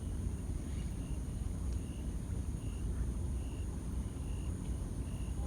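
Outdoor ambience: a steady low rumble with short high chirps repeating about once a second, with a steady high hiss above.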